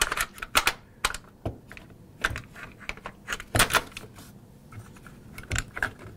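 Irregular sharp clicks and knocks of a T4E TM4 paintball marker rifle's parts being handled as the upper receiver is fitted back onto the lower receiver, the loudest knocks a little past halfway.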